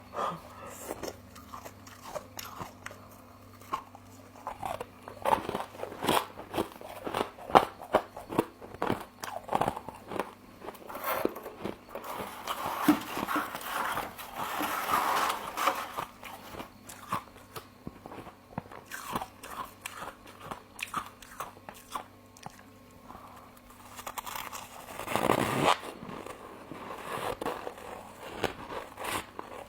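Close-up biting and chewing of frost: irregular crisp crunches, denser for a few seconds near the middle, with a louder bite near the end.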